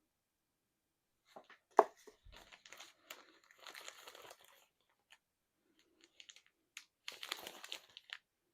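Packaging crinkling and rustling as small items are handled and unwrapped, in two spells, with one sharp knock about two seconds in.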